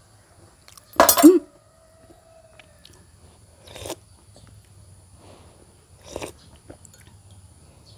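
Close-up crunching and chewing of fried banana, bitten off a spoon, with a few sharp crunches at intervals; the loudest comes about a second in.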